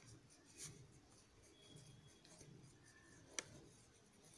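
Faint scratching of a ballpoint pen writing on lined notebook paper, with one sharp click about three and a half seconds in.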